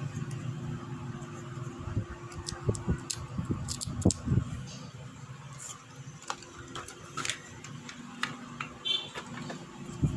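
Small irregular clicks, taps and scratches of hand tools working on a radio's volume-control power switch, cleaning its rusty contacts. A low hum runs under the first few seconds.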